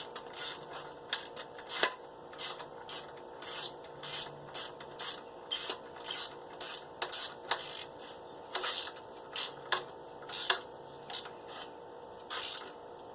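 Ratchet wrench tightening a bolt by hand: a run of short rasping ratchet strokes, about two a second and irregular, as the bolt snugs down.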